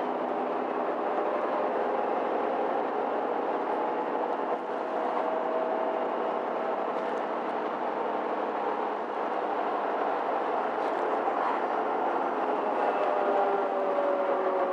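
Mercedes-Benz Citaro C2 G articulated city bus under way, heard from inside the passenger cabin: its tower-mounted engine and drivetrain running with a steady hum and a whine that rises slightly midway and falls gently near the end.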